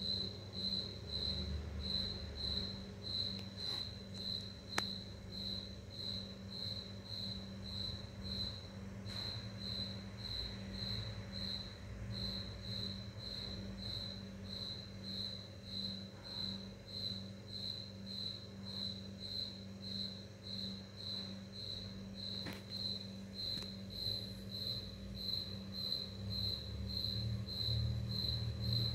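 Cricket chirping steadily, about two chirps a second at one high pitch, over a low electrical hum.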